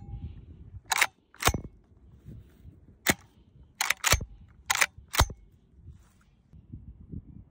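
Sharp metallic clicks and clacks of a Kral Arms Azarax 12-gauge semi-automatic shotgun's action being worked by hand, about seven in all, mostly in pairs spread over several seconds.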